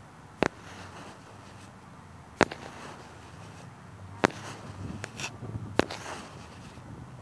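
Sharp clicks or snaps, four loud ones spaced about one and a half to two seconds apart, with a few fainter ones between them, over a low steady background.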